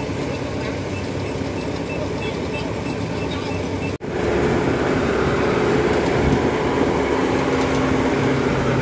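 Kubota DC-70 crawler combine harvester's engine running steadily. About four seconds in the sound drops out for an instant, then comes back louder as the combine crawls down off the bank into the rice field.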